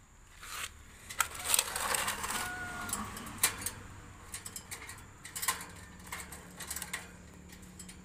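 Black-capped lory climbing on a wire birdcage, its claws and beak clicking and rattling against the metal bars, with some rustling and one short squeak about two and a half seconds in.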